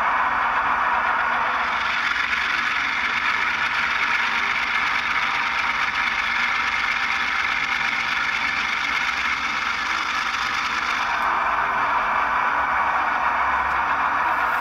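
Sound-equipped HO-scale ScaleTrains ES44 GEVO model playing its diesel prime-mover sound through its small onboard speaker while held in place by drive hold, so the engine sound runs up with the throttle without the model moving. The sound takes on a brighter, hissier edge about two seconds in and settles back about eleven seconds in.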